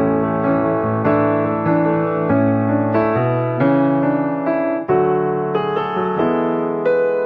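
Background piano music, a slow succession of sustained notes and chords.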